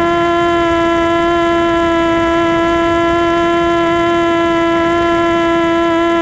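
FPV quadcopter's electric motors and propellers whining at one steady pitch, heard close up from the onboard camera, as the craft holds an even throttle.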